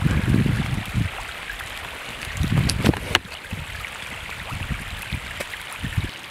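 Hail falling on a lake and its shore: a steady pattering hiss with many small sharp ticks of hailstones striking. A low rumbling noise comes in near the start and again about two and a half seconds in.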